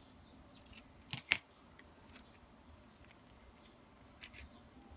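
Steel scissors snipping off the end of a plaid ribbon: two quick sharp snips about a second in, the second louder. A few faint ticks near the end as the ribbon is handled.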